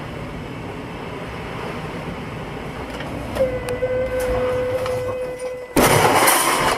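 Steady engine and road noise from a moving car. Partway through, a car horn sounds, held steadily for about two and a half seconds. About six seconds in comes a loud, sudden crash of metal and glass as an oncoming car hits head-on.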